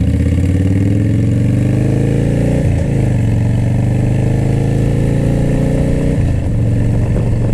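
Harley-Davidson Dyna's V-twin engine pulling as the motorcycle accelerates, its pitch rising through the gears. There are two upshifts, about three and about six seconds in, after which it runs at a steady pitch.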